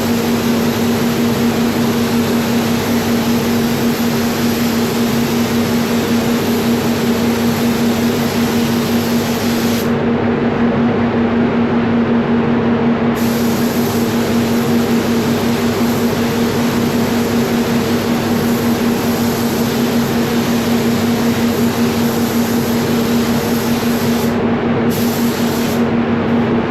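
Steady hiss of an HVLP spray gun spraying 2K clear coat, over the constant hum of the spray booth's air. The highest part of the hiss stops for about three seconds about ten seconds in, and briefly again near the end, as the trigger is released between passes.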